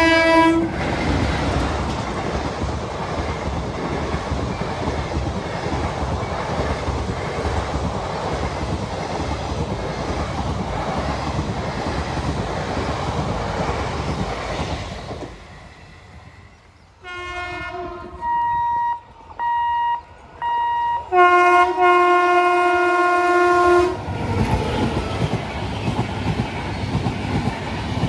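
Indian Railways passenger trains passing close by at speed: a steady rumble and clatter of wheels on rail, fading down about halfway through. The locomotive air horn then sounds in several blasts, a few short toots followed by a long loud blast, before the clatter of passing coaches returns.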